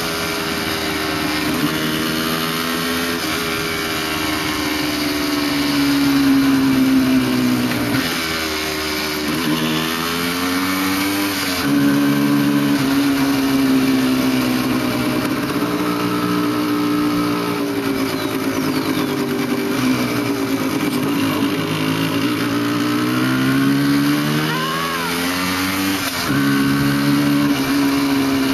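Motorcycle engine running on the move, its pitch rising and falling several times as the bike speeds up and slows down.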